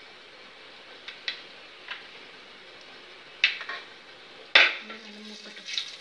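Metal utensils clinking and knocking against an aluminium cooking pot: a few light clicks, then two loud clanks about three and a half and four and a half seconds in. Under them runs a faint steady hiss of whole spices frying in a little oil.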